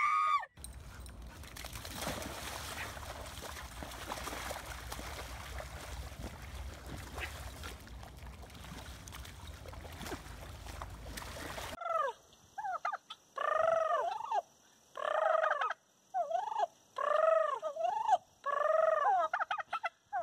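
A white domestic turkey gobbling in a rapid series of about a dozen calls, each rising and falling in pitch, short calls alternating with longer ones. Before that, for about twelve seconds, a steady rushing noise.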